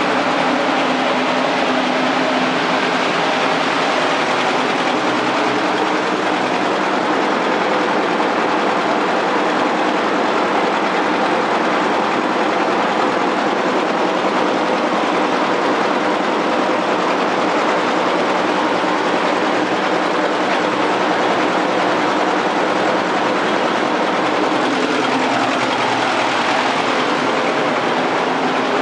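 A flatbed rice dryer's blower fan and its drive running steadily: a loud, even rush of air with a faint low hum underneath.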